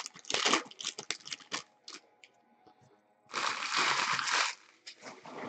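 Foil wrapper of a baseball card pack crinkling and tearing as it is ripped open: a run of short crackles, then a longer rustle a little over three seconds in.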